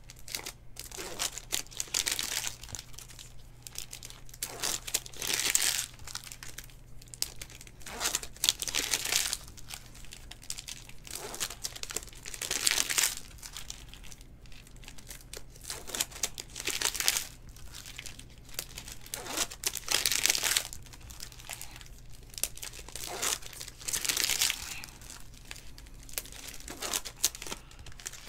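Foil wrappers of 2019 Topps Chrome Sapphire trading-card packs crinkling and tearing as the packs are ripped open by hand, in repeated loud bursts every few seconds.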